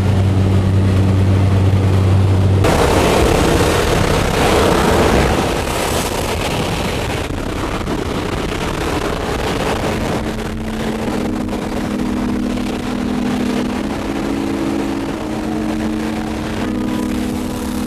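Steady drone of the jump plane's engine in the cabin, cut about three seconds in by a sudden loud rush of wind as the jump door is opened. The wind noise carries on, and in the second half music with held, stepping notes comes in under it.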